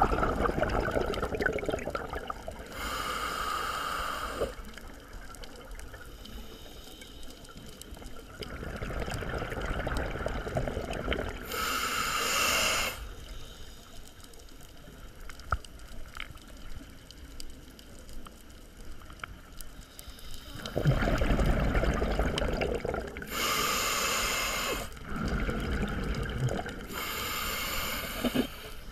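Scuba diver breathing through a regulator underwater: four hissing inhales, each about a second and a half long, with bubbling exhales between them.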